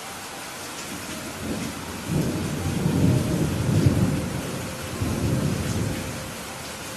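Steady rain with a roll of thunder: a low rumble builds about a second and a half in, peaks in the middle, swells once more and fades out near the end.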